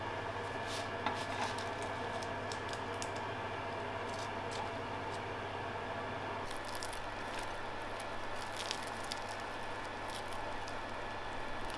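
Freshly baked croissants handled: light clicks and rustles as they are set on a wire cooling rack, then the flaky crust crackling as a croissant is torn apart by hand near the end, over a steady low hum.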